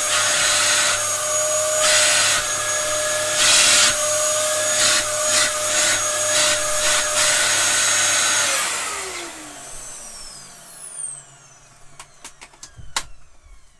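Dyson DC07 upright vacuum cleaner running, a steady motor whine over the rush of air through its hose, the airflow surging a few times. About eight and a half seconds in it is switched off and the motor whines down over a few seconds, followed by a few sharp clicks near the end.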